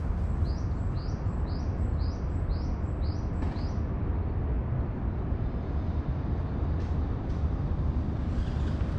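A bird calls a quick series of about eight short, upward-sweeping high chirps, roughly two a second, stopping after about three and a half seconds, over a steady low rumble.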